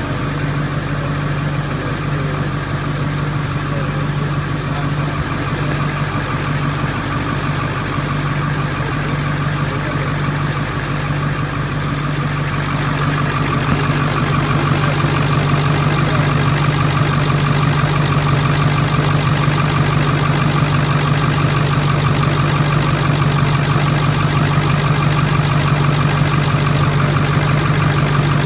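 Ford truck engine idling steadily, run after an A/C recharge so the refrigerant left in the service hoses can be cleared. About halfway through, the sound grows a little louder and brighter.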